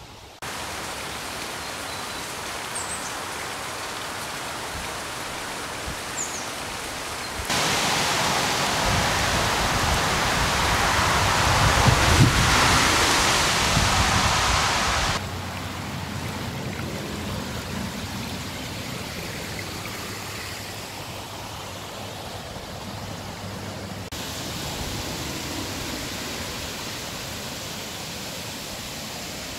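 Steady hiss of rain falling on floodwater, jumping in level at several cuts. A louder stretch in the middle adds irregular low rumbling.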